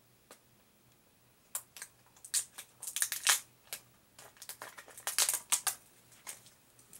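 Plastic shrink wrap being torn and crumpled off a Blu-ray case: a quick run of sharp, irregular crinkles and crackles that starts about a second and a half in, after a couple of faint clicks.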